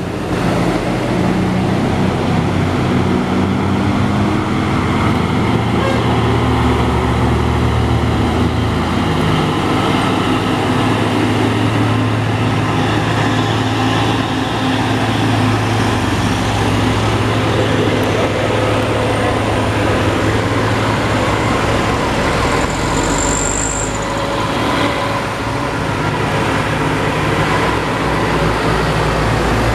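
Diesel engines of heavy trucks running steadily as they climb a steep grade in slow traffic, with cars and a motorcycle passing. There is a continuous low drone, and a brief high squeal about three-quarters of the way through.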